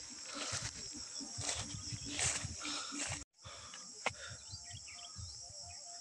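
Steady high-pitched insect chorus, with low rustles and thumps underneath. The sound drops out completely for a moment a little past halfway, and there is one sharp click about four seconds in.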